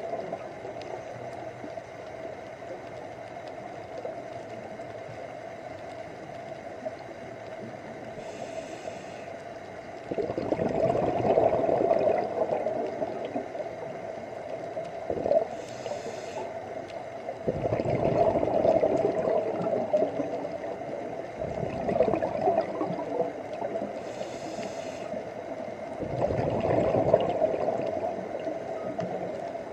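Scuba diver breathing through a regulator underwater: a brief hiss on each inhale, then a longer surge of bubbling exhaust, about three slow breaths. A steady hum runs underneath.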